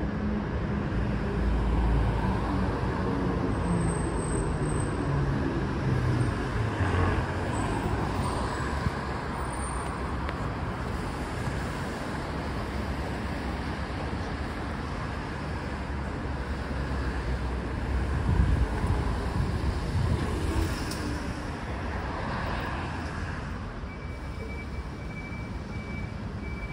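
Steady city street traffic, vehicles passing on the road. A few seconds in, one vehicle's engine note falls in pitch as it goes by or slows, and the traffic swells louder for a moment past the middle.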